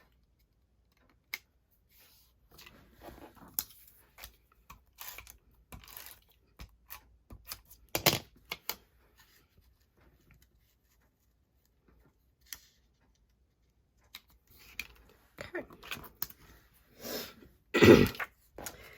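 Paper and cardstock being handled and pressed into place on a craft desk: irregular rustles, light taps and clicks, with two louder crinkling bursts, one around eight seconds in and one near the end.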